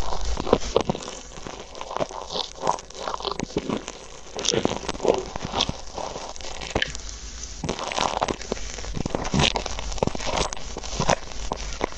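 Close-up crackling and crunching of bead-filled foam clay pressed over a small earphone microphone as a wooden ear pick pokes and scrapes through it, then metal tweezers pinch and pull at it near the end. Irregular crisp crackles in uneven clusters.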